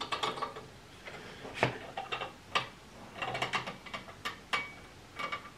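Gear train of a reproduction Antikythera mechanism being turned by hand, giving a run of irregular clicks and ticks. The mechanism is not working well: its sun and moon pointers are not turning as they should.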